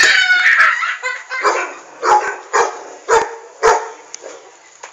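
A dog barking repeatedly, about two barks a second, after a louder, higher cry at the start.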